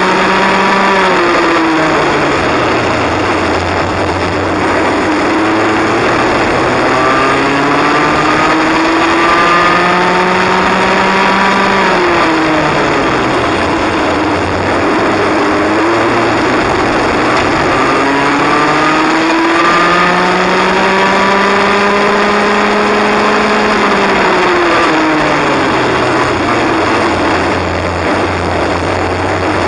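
Cadet kart engine heard from on board at racing speed. Its pitch climbs steadily for several seconds, then drops sharply as the driver lifts off, then climbs again. This happens about three times as the kart laps the track.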